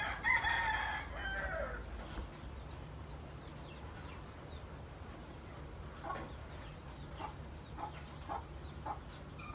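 A rooster crows once, lasting nearly two seconds and dropping in pitch at the end; after it, chickens give a few short faint clucks over a low steady hum.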